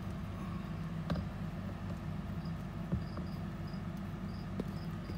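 Steady low hum with a few soft clicks, and a faint high-pitched chirping that repeats about twice a second in the second half.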